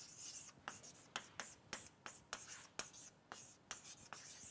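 Chalk writing on a blackboard: a quick run of faint chalk taps and scratches, about three or four strokes a second.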